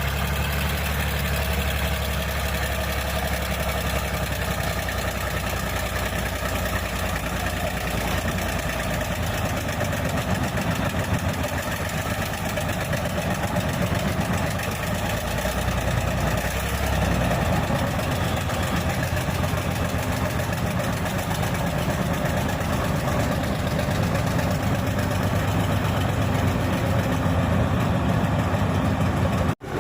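Heavy diesel engines of a bulldozer and a backhoe running steadily; the low engine note changes about halfway through.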